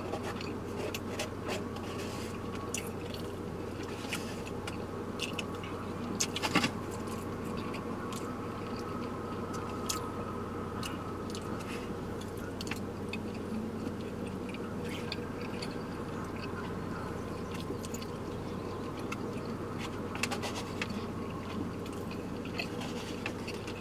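A person eating with a fork: chewing, with scattered clicks and scrapes of the fork against a takeout food container and a louder cluster of clicks about six seconds in, over a steady low hum inside the car.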